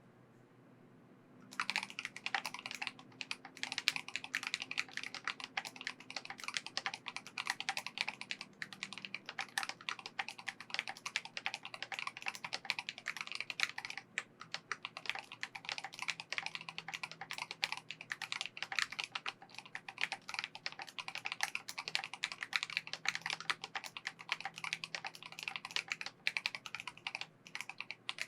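Fast typing on a Glorious GMMK 3 Pro HE Hall-effect keyboard fitted with PBT keycaps. A dense, unbroken run of keystroke clacks starts about a second and a half in.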